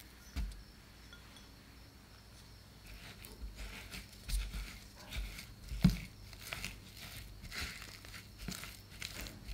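Wire whisk beating cream cheese and sugar in a glass bowl: irregular scraping strokes, with light clinks of the wires against the glass, starting about three seconds in. One stronger knock comes near the middle.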